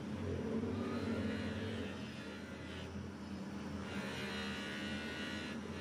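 Electric bench grinder running with a steady hum. About four seconds in, a hiss rises as a steel scissor blade is pressed against the spinning wheel.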